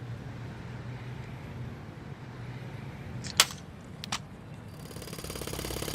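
A low steady hum, two sharp clicks, then a jackhammer starts up near the end with a fast, even hammering that grows louder.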